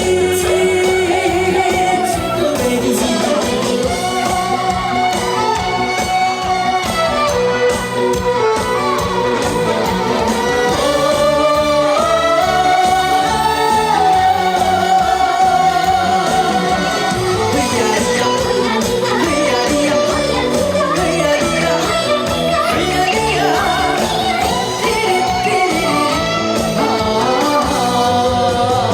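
A singer sings a Korean folk-style trot song live over a loud backing track.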